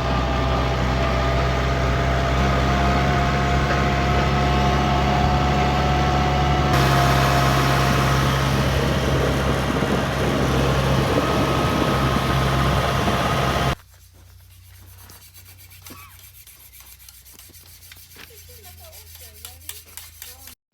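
Steady engine drone and road noise from inside a running vehicle, with a constant low hum and a faint whine. After about fourteen seconds it cuts off suddenly to much quieter light rustling and small clicks.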